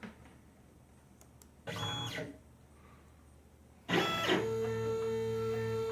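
Stepcraft CNC router's stepper motors driving the axes at the start of a job, with the spindle not running: a short whining move about two seconds in, then from about four seconds a steady whine as an axis travels.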